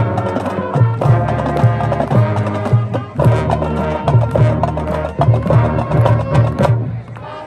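High school marching band playing, brass over a steady drumline beat with sharp percussion hits; the music drops away near the end.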